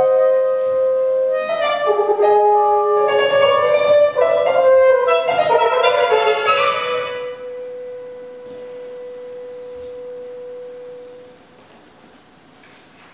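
Chamber trio of clarinet, French horn and piano playing contemporary classical music: overlapping held notes for about seven seconds, then one long held note that fades out.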